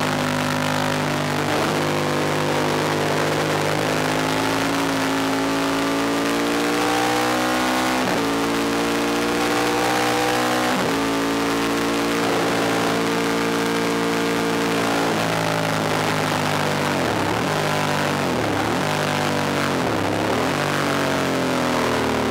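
Onboard sound of a Ducati 1000DS air-cooled L-twin at racing speed: it revs up through the gears with two sharp upshifts about eight and eleven seconds in, holds high revs, then falls away under braking with several quick downshifts near the end.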